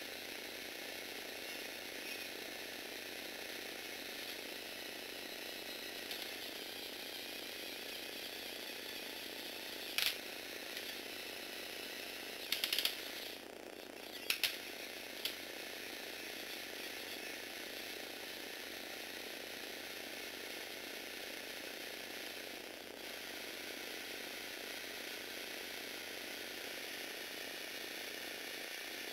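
Small electric motor driving a Lego Technic plastic gear train, a steady whirring grind of meshing gears as it raises the boom. A few sharp clicks come about a third of the way through and again shortly after.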